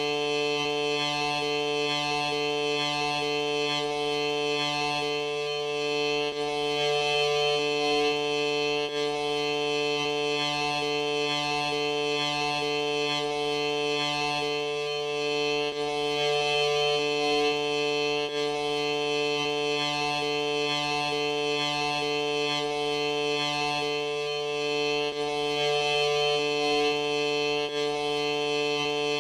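A sneeze slowed and stretched out into a continuous droning chord of held tones. One of the lower tones drops out briefly a few times.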